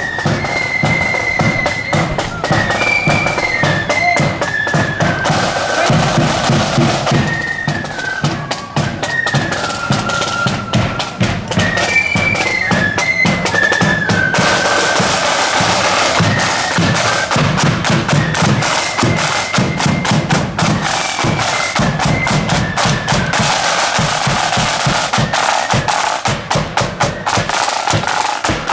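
Marching flute band playing: flutes carry a high, stepping melody over rapid snare drumming and bass drum.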